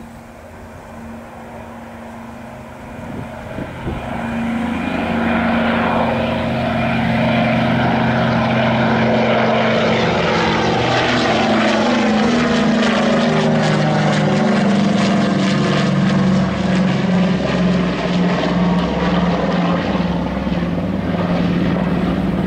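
Douglas DC-3's twin radial piston engines and propellers droning as the aircraft climbs past close overhead. The sound grows louder over the first five seconds and then holds loud, and the engine note drops in pitch as the aircraft passes about halfway through.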